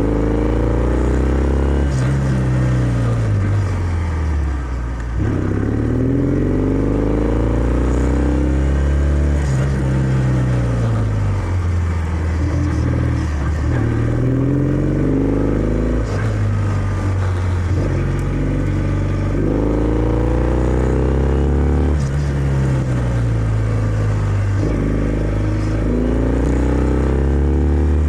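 Kawasaki W650's air-cooled parallel-twin engine through its stock exhaust, heard while riding. The engine note climbs and drops back again and again, every two to four seconds, as the bike accelerates and eases off.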